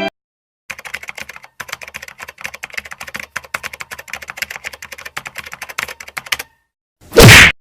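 Keyboard typing sound effect: rapid, irregular key clicks for about six seconds. Near the end comes a brief, much louder burst of noise.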